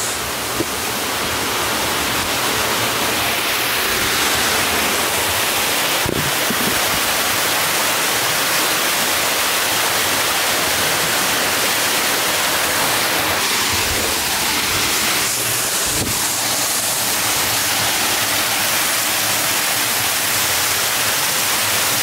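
Waterfall pouring steadily, a loud, even rush of falling water that does not let up.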